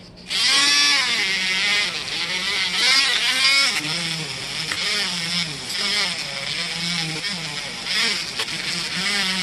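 Handheld rotary tool switching on about a third of a second in and running with a high whine whose pitch dips and rises as its small wheel is pressed against the steel blade of a putty knife, scrubbing off old grime.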